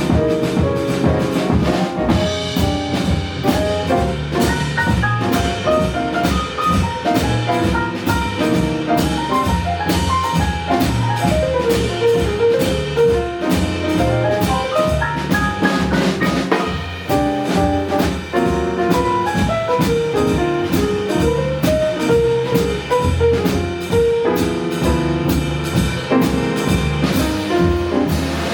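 Live jazz band playing: drum kit and bass under a fast, busy melodic line of quickly changing notes.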